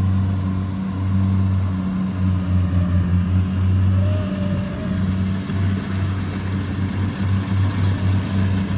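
Kubota DC70 combine harvester's diesel engine running steadily under load as it cuts rice: a deep, even drone that wavers a little in level.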